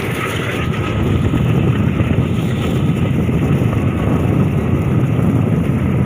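Passenger train running at speed, heard from an open coach doorway: a steady rumble of wheels on rails mixed with a rush of wind, a little louder after about a second.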